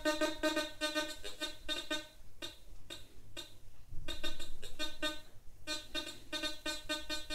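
Teknetics T2 metal detector sounding a string of short, buzzy target tones, about two to three a second with brief gaps, as a test object is swept past its coil. A dull low thump comes about four seconds in.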